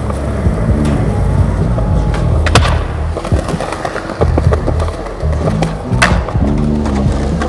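Skateboard wheels rolling on concrete, with sharp clacks of the board popping or landing, the loudest about two and a half seconds and six seconds in, over background music.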